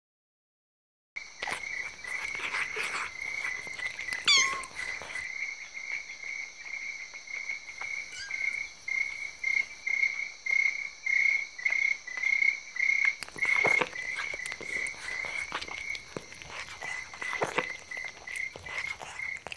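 Night-time nature ambience: a steady, rhythmic chorus of chirping frogs and insects that starts about a second in. A quick falling whistle comes about four seconds in, and a few sharp knocks sound over it.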